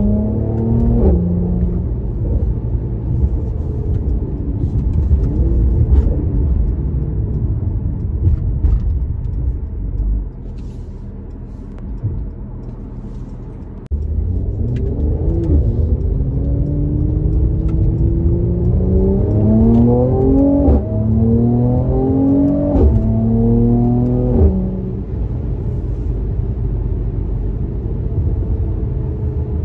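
A Mercedes-AMG C43 engine and exhaust, heard from inside the cabin, pulling hard through the gears. The pitch rises, then drops at each upshift, with sharp cracks at the shifts. Near the middle it runs quieter for a few seconds at light throttle.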